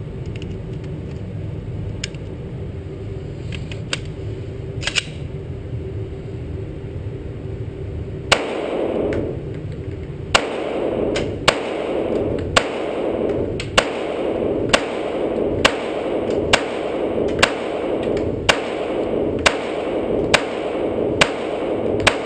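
A steady low hum with a few light clicks, then from about eight seconds in a Glock 17C 9mm compensated pistol firing slow single shots, about one a second, some fourteen in all, each echoing around the indoor range.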